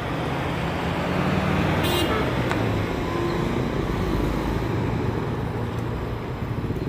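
Excavator engine running steadily, with a brief high-pitched squeal about two seconds in.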